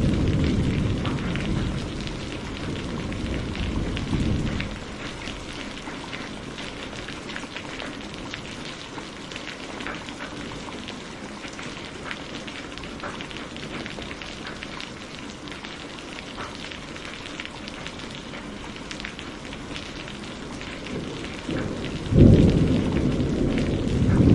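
Steady rain falling, with the patter of individual drops throughout. Thunder rumbles low at the start and dies away after about four seconds, and a new clap of thunder breaks sharply near the end and keeps rumbling.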